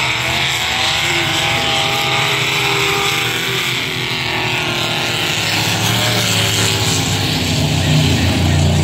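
Trucks racing around a speedway oval, their engines running hard with the pitch slowly rising and falling as they lap and pass.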